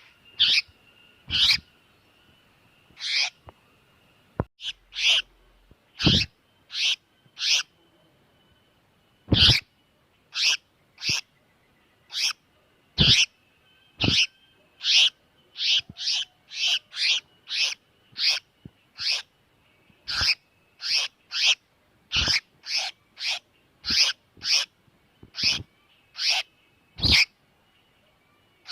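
Distress calls of a tiểu mi đất bird: short, sharp calls repeated irregularly, about one or two a second with some quicker runs, over a faint steady high tone.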